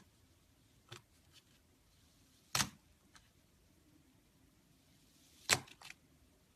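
A few short, sharp clicks or taps in a quiet room, two of them much louder, about three seconds apart.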